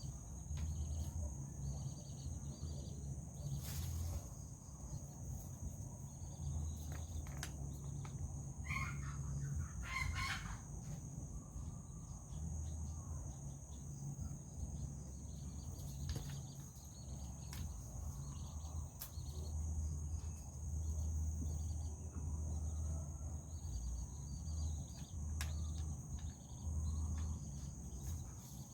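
A steady high insect drone, as of crickets, runs throughout, with low rumble and occasional light clicks and knocks. A rooster crows once about nine seconds in.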